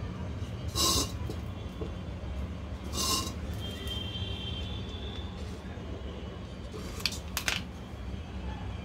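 Handling noises from gluing braided cloth cord onto a clay pot: two short rustling, scraping bursts about a second and three seconds in, and a couple of sharp clicks near the end, over a steady low hum.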